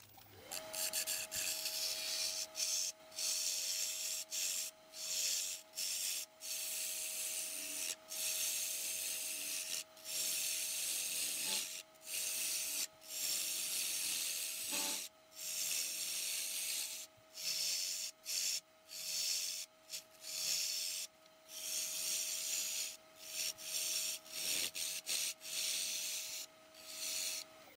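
Wood lathe starting up and running with a steady motor whine, while a turning tool cuts the face of a spinning cherry platter blank: a hissing cut that comes in repeated passes of a second or two, broken by short pauses.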